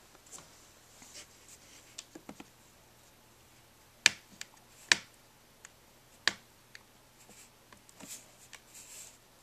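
Fingers picking and scratching at a paper sticker on a laptop's glossy plastic palm rest: scattered light taps, three sharp clicks a second or so apart in the middle, and soft scraping near the end.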